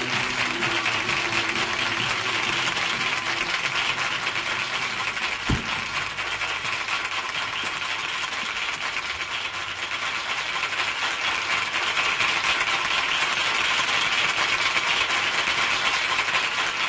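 Audience applauding steadily. Low held notes from the band fade out after about three seconds, and there is a single dull knock about five and a half seconds in.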